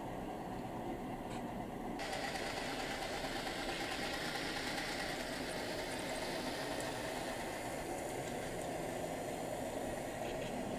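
HO scale model diesel switchers pulling log cars, with a steady diesel engine sound. The sound gets louder and brighter about two seconds in.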